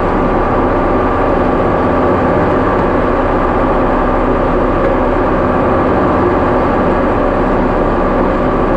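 Farm tractor engine running steadily under load, with a constant droning pitch.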